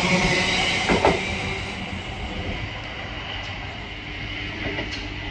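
Electric multiple-unit passenger train running past along the platform, with a double click of wheels over a rail joint about a second in. The sound fades as the last carriage clears.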